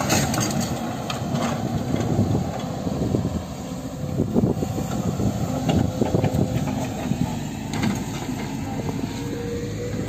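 Excavator diesel engines running steadily at the landslide clearing work, with irregular crunching of footsteps on railway ballast stones.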